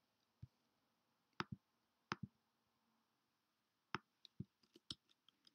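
Faint clicks of a computer mouse: a single click, then two quick double clicks, followed near the end by a faster run of about ten light clicks and key taps.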